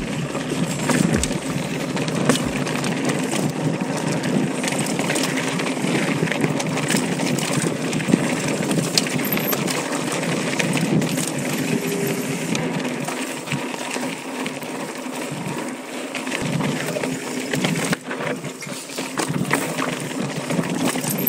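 Intense ACV mountain bike rolling fast down a loose dirt trail: tyres crunching over gravel and dirt, with a steady rattle and frequent clicks and clacks from the bike's frame and drivetrain as it bounces over the bumps.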